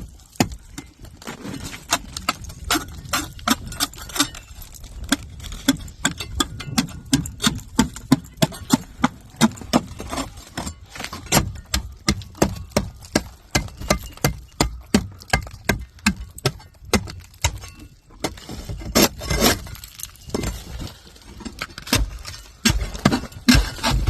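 Ice pick chipping at thick ice crusted on a frozen door, a quick run of sharp knocks with clinking of breaking ice, several strikes a second, with a brief pause about three-quarters of the way through.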